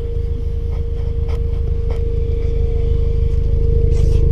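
2017 Subaru WRX's turbocharged 2.0-litre flat-four idling steadily through a newly fitted Tomei cat-back exhaust, warming up after a start.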